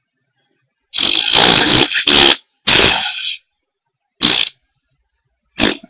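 A run of loud fart sounds: a long drawn-out one about a second in, a second shorter one right after, then two brief ones.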